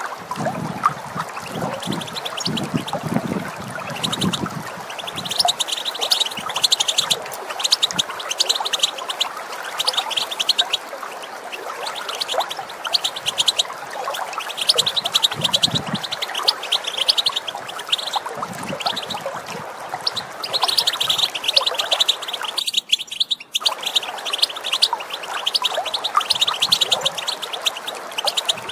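European goldfinches twittering and calling rapidly and continuously over steady running water, with some deeper gurgling in the first few seconds. The sound cuts out briefly about four-fifths of the way through.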